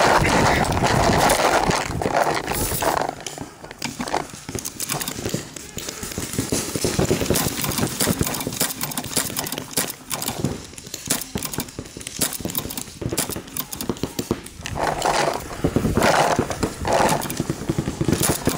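Paintball game action: many scattered sharp pops and smacks of paintball markers firing and paintballs striking the inflatable air bunkers, irregular, with louder stretches near the start and near the end.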